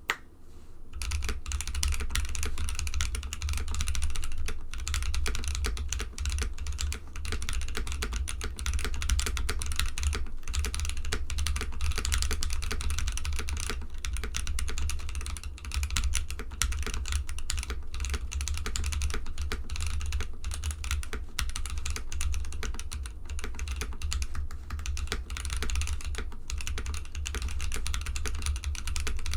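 Continuous fast typing on a mechanical keyboard with stock, unlubed Gazzew Boba U4T tactile switches on an FR4 plate: a dense run of clacky keystrokes.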